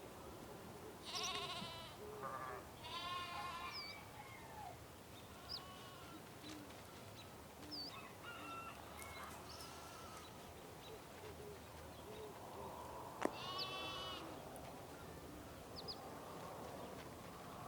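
Farmyard ambience: farm animals bleating three times, about a second in, around three seconds in and again near the end, with short bird chirps between and a steady low background.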